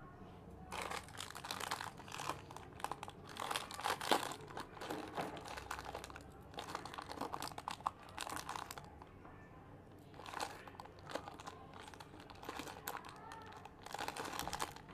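Small clear plastic packets of jewellery crinkling as they are handled, in irregular spells with a short lull about nine seconds in.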